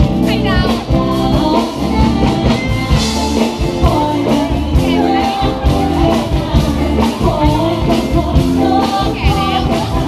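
A live band playing a song, with a singer over a steady drum beat.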